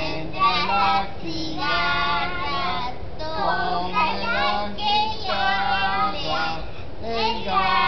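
A child singing, with some notes held for about a second.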